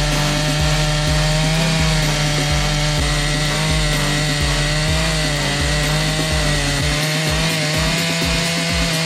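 Stihl chainsaw running at steady full throttle, ripping lengthwise through an ash log in a chainsaw mill to cut a slab.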